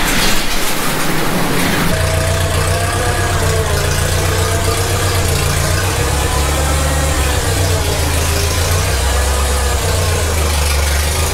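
Farmall 504 tractor engine running at low speed as the tractor creeps into the shop, its note starting about two seconds in and wavering slightly in pitch. Before it, a short rushing noise as the overhead garage door rolls up, over a steady rush from the shop heater.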